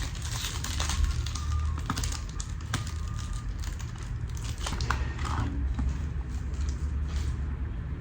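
Packaging being handled and opened: crinkling with several sharp clicks, easing off near the end, over a steady low hum.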